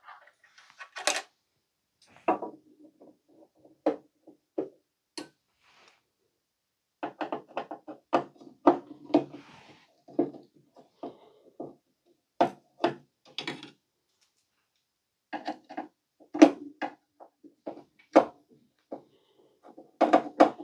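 Handling noises inside an opened CRT monitor: irregular clicks, taps and rattles as a screwdriver and clip lead are handled and connector plugs on the tube's neck are worked loose, with a short lull about two-thirds of the way through.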